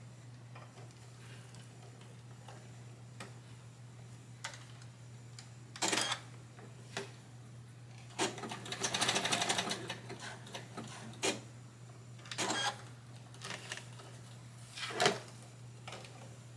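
Electric home sewing machine stitching in several short bursts, the longest about two seconds, with light clicks between, as it sews back and forth across the overlapped ends of an elastic.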